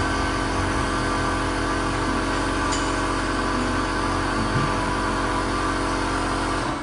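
Steady drone of a motor or engine running at constant speed, stopping abruptly near the end.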